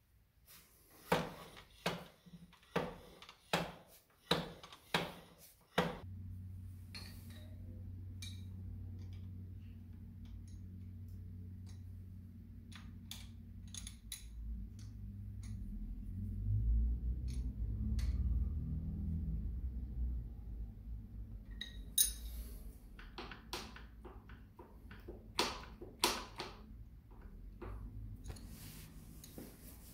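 Metal spanner clinking and ticking against bolts on a motorcycle engine cover: a quick run of about eight clinks, then scattered light ticks and another cluster of clinks near the end. A steady low hum runs underneath from several seconds in.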